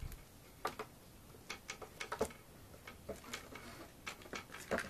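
Faint, irregularly spaced small clicks and light taps, about a dozen, with no steady sound between them.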